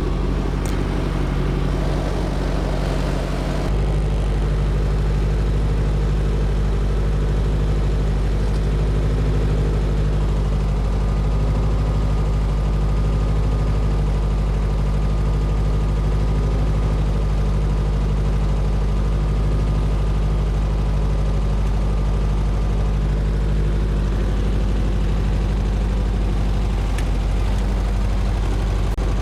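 Helicopter engine and rotor running steadily, kept going now that the alternator is on and charging the weak battery. The low drone steps up and gets fuller about four seconds in.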